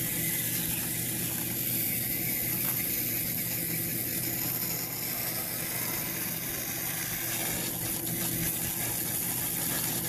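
Garden hose spray nozzle hissing steadily as it rinses foaming coil cleaner off the aluminium-finned condenser coil of a rooftop RV air conditioner, with more flow than pressure. A steady low hum runs underneath.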